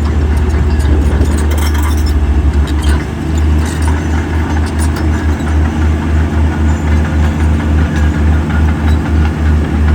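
Heavy diesel engine of earthmoving machinery running, a deep rumble that throbs about twice a second.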